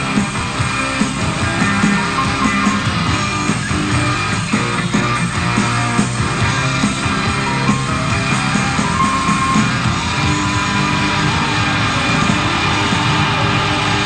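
Live rock band playing loud, with electric guitars over drums.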